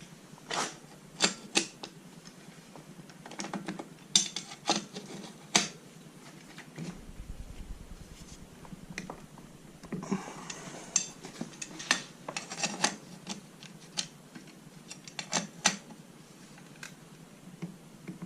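Scattered metal clicks and clinks from a wrench working a bottom bracket tool as the bike's bottom bracket cup is tightened down, some clicks coming in quick clusters.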